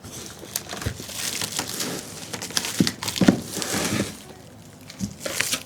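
Plastic protective film crinkling and rustling, with light knocks, as a wrapped part is lifted out of a foam-lined flight case; the handling dies down for about a second, then a few more knocks come near the end.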